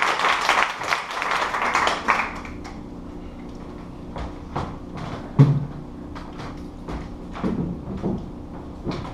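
Audience applause that cuts off about two seconds in, followed by scattered knocks and scrapes of a metal-framed stool being handled and set down on the stage floor, the loudest a thump about halfway through.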